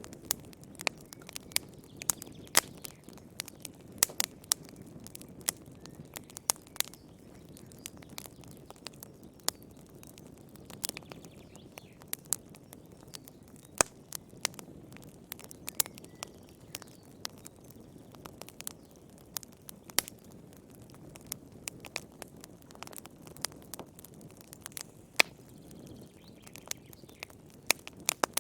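Wood fire crackling in a fireplace: irregular sharp pops and snaps, several a second, over a steady low rumble of the flames.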